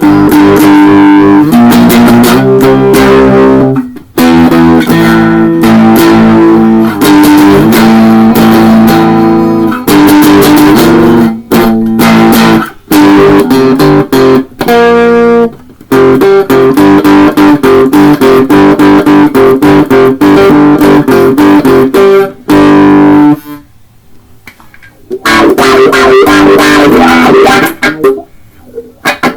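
Electric guitar played through a Boss Metal Zone distortion pedal and a wah pedal: loud distorted riffs and held notes, with short breaks and a longer pause near the end.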